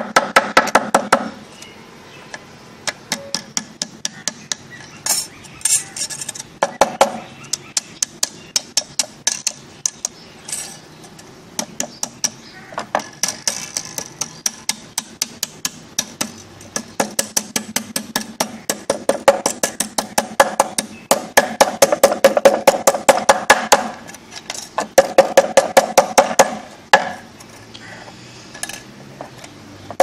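Hammer tapping a thin metal strip on a wooden bee box to bend it into an entrance gate: rapid blows, a few a second, in runs with short pauses, some runs with a metallic ring.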